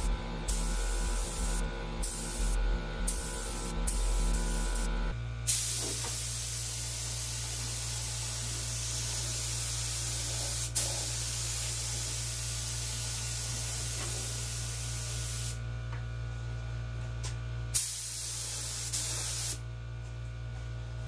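Compressed-air gravity-feed paint spray gun hissing as it lays the first coat of paint on a car body. It comes in short bursts for the first few seconds, then in long steady passes, with the hiss dropping out twice briefly near the end. A steady low hum runs underneath.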